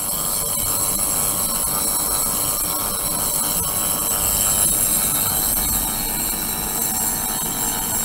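Ultrasonic cleaning bath running with a glass beaker in the water: a steady, high-pitched hiss with several fixed whining tones, the audible noise of the ultrasonic vibration in the liquid.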